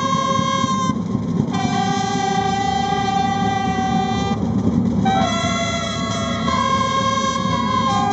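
Brass instruments playing a slow military call in long held notes, moving between a high and a lower pitch, with a stretch of several notes sounding together in harmony partway through.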